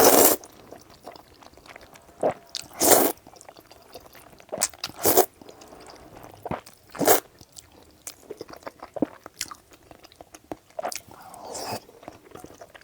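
Close-miked eating of sticky, sauced wide noodles: about five short slurps spread a couple of seconds apart, with wet chewing and lip smacks in between.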